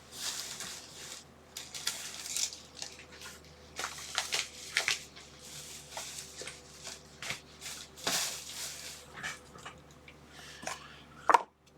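Plastic packaging crinkling and rustling in irregular handfuls, with a few light clicks of hard plastic, as a cheap plastic brush holder is unwrapped and handled.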